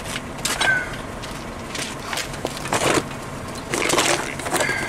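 Cardboard brake pad box being handled and opened, with several short bursts of rustling and scraping.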